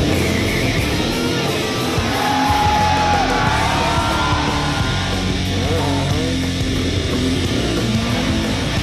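Hard rock music with electric guitar.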